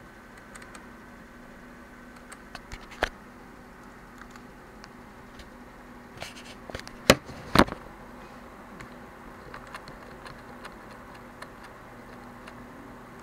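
Scattered sharp clicks and light knocks over a faint steady hum, with the two loudest clicks about seven seconds in.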